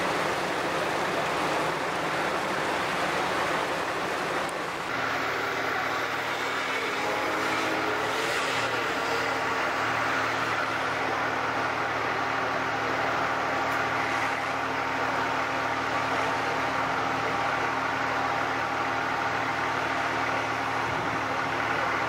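Floodwater washing and rushing over a flooded harbour quay. About five seconds in this gives way to a heavy machine engine running steadily with a constant hum, as at a flood barrier where a wheel loader is working.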